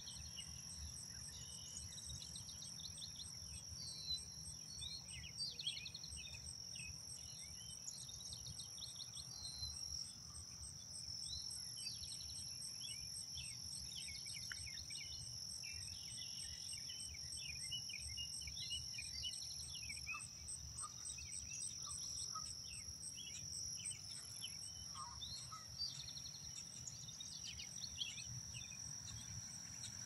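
Outdoor nature ambience: many short bird chirps and calls scattered throughout, over a steady high-pitched insect drone and a fast, evenly pulsing insect trill, with a low rumble underneath.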